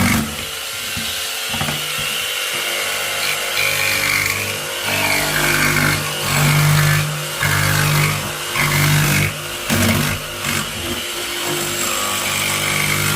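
Power tool motor running, speeding up in a series of short bursts with a steady whine between them.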